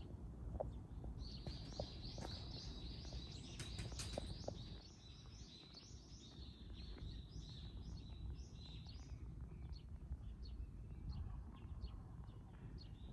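Small birds chirping in a quick run of short, high notes, busiest in the first half and sparser toward the end, over a faint low background rumble.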